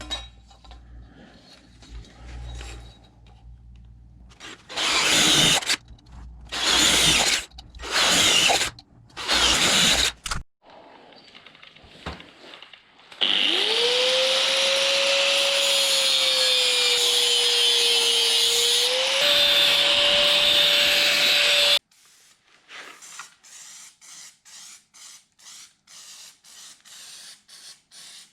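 Electric drill boring plug-weld holes through sheet steel: four short bursts of about a second each, then a longer run of about eight seconds with a steady motor whine that rises as it spins up. Faint ticking follows in the last few seconds.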